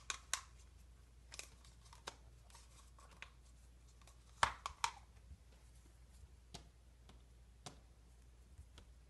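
Hands handling modelling dough and its plastic tub: scattered light clicks and ticks. The loudest are a close pair about four and a half seconds in.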